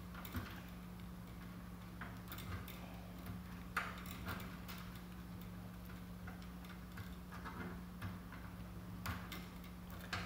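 Faint, irregular clicks and ticks of a hand tool and stiff wires being twisted together inside a metal light fixture, over a steady low hum.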